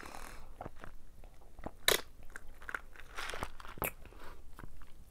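Close-miked mouth sounds of drinking and chewing: sips and swallows of iced ginger ale, with many short wet clicks and crunches, two of them sharper about two and four seconds in.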